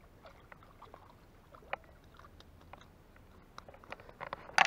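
Faint water splashes and irregular small ticks as a hooked fish is played at the surface close to the bank, with one sharper knock near the end.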